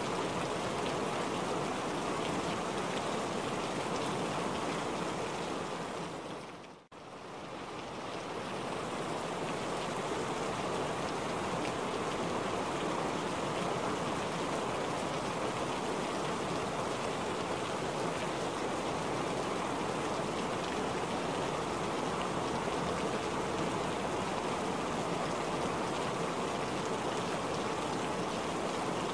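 Steady rain falling in a dense, even hiss. About seven seconds in, it fades sharply almost to nothing and swells back within a second or two.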